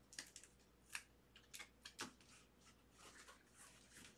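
Faint handling sounds of trading cards in clear plastic sleeves: a few soft clicks in the first two seconds, then light rustling of plastic and card.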